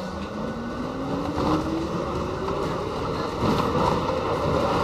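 R68 subway train's traction motors whining, rising steadily in pitch as the train accelerates out of the station. Wheel and track rumble grows louder underneath.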